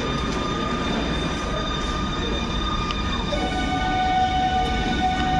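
An EU160 electric locomotive (Newag Griffin) drawing an intercity train into the station, with a steady rolling rumble. About three seconds in, several steady whining tones come in and the sound grows a little louder as it nears.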